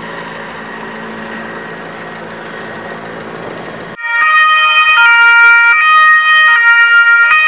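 A steady low hum for about four seconds, then a loud Carabinieri patrol car's two-tone siren starts and alternates between its two pitches roughly every 0.8 seconds.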